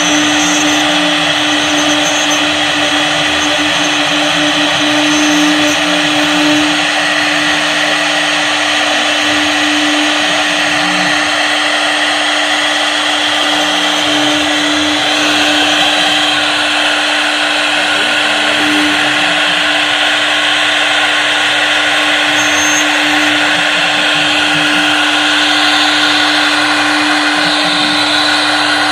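CNC wood router's spindle running steadily with the bit cutting into wood: a constant whine under a dense cutting hiss, with no pauses.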